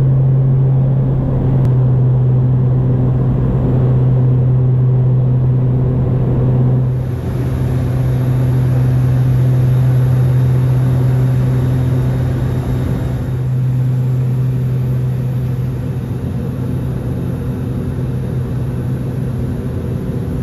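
Cabin drone of a Dornier 228's twin turboprop engines and propellers in flight: a loud, steady low hum with a rumble beneath. It eases a little in the second half.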